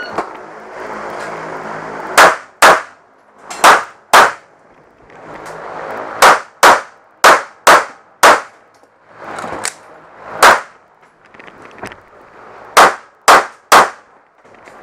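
Walther PPQ pistol fired about a dozen times, mostly in quick pairs of shots half a second apart, with gaps of a second or more between pairs.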